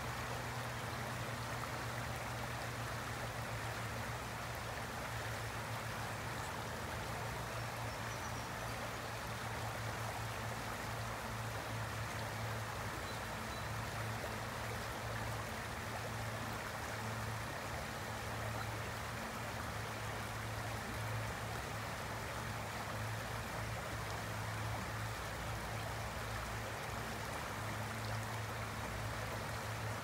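Shallow stream running steadily over rocks and pebbles, an even, unbroken rush of water.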